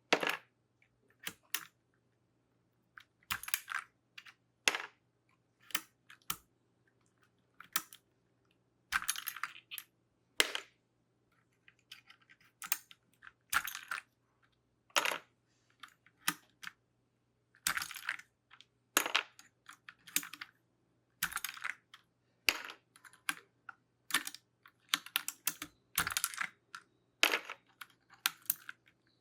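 Plastic keycaps being pulled off a mechanical keyboard, one after another: sharp, irregular clicks and light plastic clatter as each cap pops free, with short pauses between.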